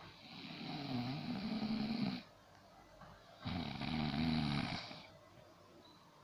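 A woman snoring loudly: two long snores of about two seconds each, with a low buzzing pitch that wavers. The second begins about three and a half seconds in.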